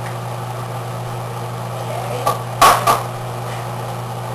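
An egg being cracked against the rim of a bowl: three sharp knocks close together a little past halfway. Under it runs the steady hum of an air conditioner.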